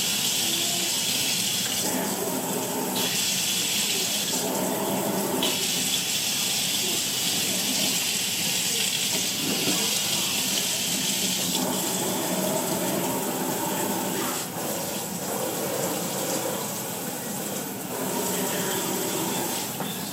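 Water running from a kitchen faucet's replacement pull-down spray head into the sink. The rushing sound changes character several times, switching between a bright hiss and a lower, duller splash: about two seconds in, around five seconds in, and again near twelve seconds in.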